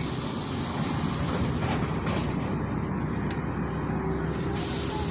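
LiAZ-5292.67 CNG city bus running, heard from inside the passenger cabin: a steady mix of engine and road rumble. A faint steady whine comes in near the end.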